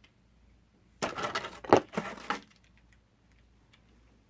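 Plastic toy pieces and their packaging being handled: a cluster of clicks, clatter and crinkling lasting about a second and a half, starting about a second in.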